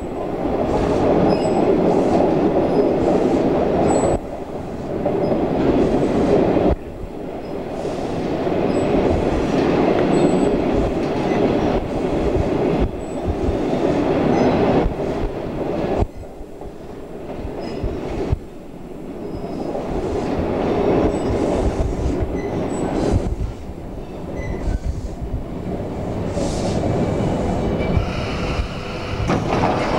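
Suburban electric passenger train running along the track, heard from inside the carriage: a steady rumble of wheels on rails, with faint short high squeaks now and then. The level drops suddenly several times and then builds back up.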